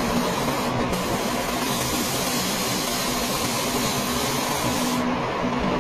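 Compressed-air paint spray gun hissing steadily as it sprays paint onto the body panel, with the high part of the hiss dropping out for about a second near the end.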